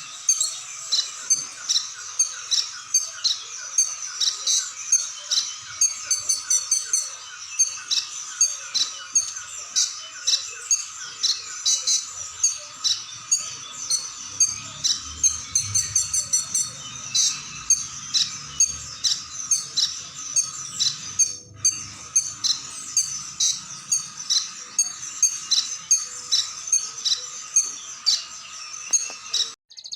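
A konin (kolibri ninja) sunbird singing a rapid, varied run of high, sharp chirps and trills, about three to four notes a second, with a steady high drone underneath.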